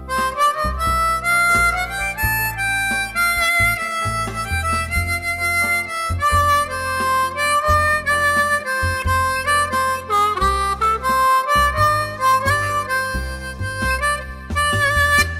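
Background music: a melody of short stepping notes over sustained bass notes, playing without a break.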